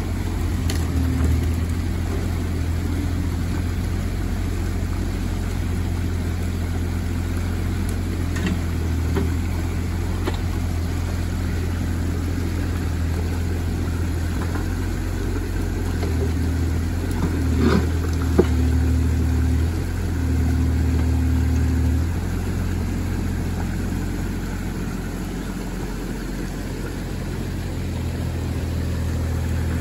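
Bobcat E35 mini excavator's diesel engine running steadily as it works, pulling harder and louder for a few seconds past the middle, with a couple of knocks just before that. Water rushes through the dam spillway throughout.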